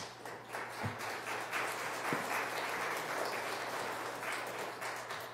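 Audience applauding: many hands clapping, building quickly and fading near the end.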